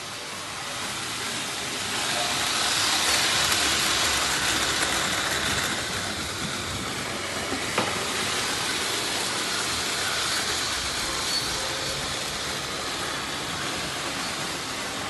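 Märklin model train running on the layout's track, a steady rushing hiss that swells a couple of seconds in, with a single sharp click about eight seconds in.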